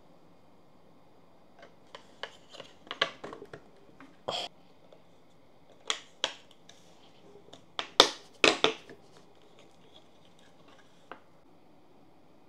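3D-printed ABS plastic sign pieces clicking and knocking as they are handled and pressed together at their glued key joints: scattered sharp clicks, the loudest knocks coming about eight seconds in.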